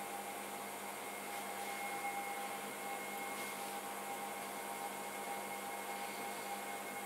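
Electric pottery wheel motor running steadily as the wheel spins a hump of clay: an even hum with a faint high whine.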